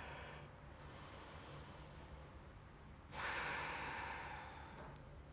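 A woman's long, audible breath out, starting sharply about three seconds in and fading away over a second and a half, as she rests on her back after coming down from a deep backbend.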